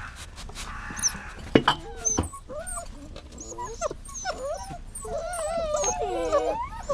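Dog whining and whimpering: a string of short, high, wavering whines that slide up and down in pitch, coming thicker and overlapping near the end, with a few sharp clicks in between.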